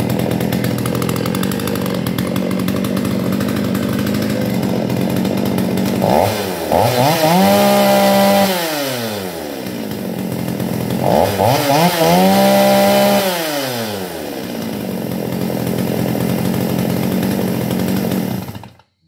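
Stihl 021C two-stroke chainsaw engine running at idle, revved twice to high speed for a few seconds each, the pitch climbing and falling back. It is switched off, cutting out abruptly just before the end.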